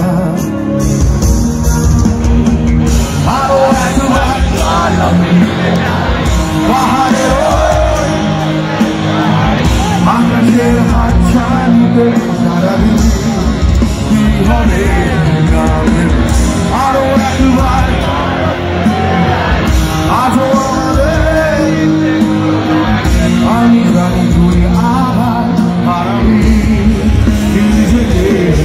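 A live rock band playing loud on stage, with electric guitars and a singer; the singing comes in about three seconds in. Heard from among the concert crowd.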